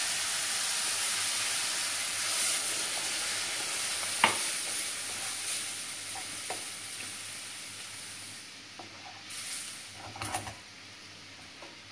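Cold milk sizzling and hissing as it is poured into a hot frying pan of fried green peppers and flour toasted in oil, the sizzle slowly dying away as the milk takes the heat. A wooden spatula stirs through it, with one sharp knock about four seconds in and a few light scrapes near the end.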